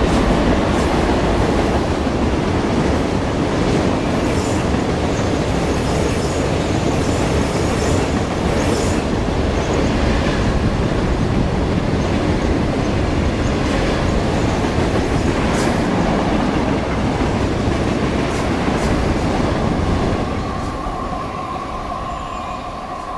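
BNSF freight train of tank cars rushing past at speed: a loud, steady rumble of wheels on rail with occasional sharp clicks. About twenty seconds in the rumble starts to die away and a steady high whine is left.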